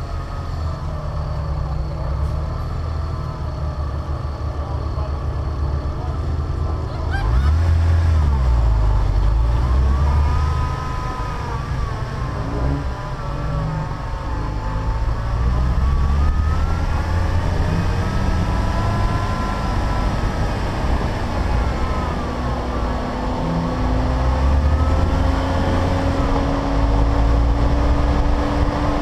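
Car engine running under way with a heavy low rumble, its pitch rising and falling several times as it revs. A steadily climbing tone in the last third shows it pulling through a gear.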